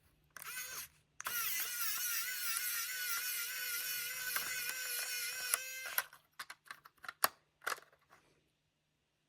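Small handheld power tool's electric motor running in a steady high whine with a slight regular waver for about four seconds, followed by a few small plastic clicks.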